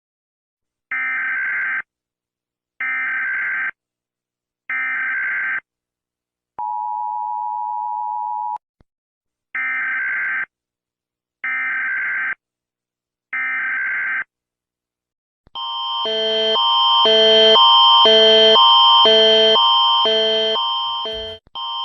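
Emergency Alert System alert: three one-second bursts of warbling digital data tones (the SAME header), a steady two-tone attention beep for about two seconds, then three more data bursts. About two-thirds of the way in, a loud pulsing alarm of several stacked tones starts, beating about one and a half times a second.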